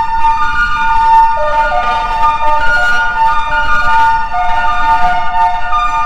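Ambient music of long held tones: one steady high note sounds throughout, with lower notes stepping in and out beneath it from about a second and a half in.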